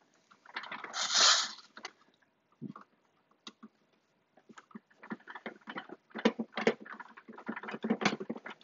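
Phillips screwdriver driving small screws by hand into the plastic shoulder housing of an Omnibot 5402 robot arm: many quick irregular clicks and scrapes from about halfway through. A brief loud scrape about a second in as the parts are handled.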